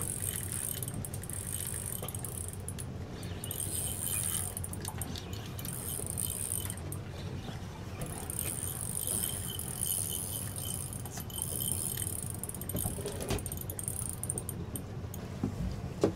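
Boat engines idling with a steady low hum, under a high whirring hiss that comes and goes in spells and light metallic rattling.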